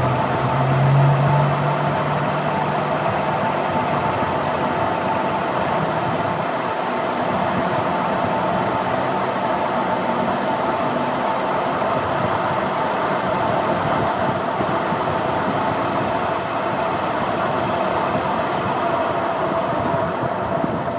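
Metal lathe running steadily with a constant machine hum and whine.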